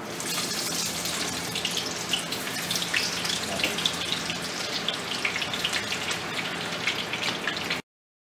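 Thin-sliced onions coated in cornstarch sizzling in hot frying oil, a steady hiss full of small pops. It starts suddenly as they go into the oil and cuts off abruptly near the end.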